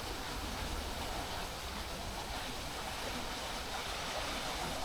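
Steady rush of river water pouring over a weir, with a low rumble underneath.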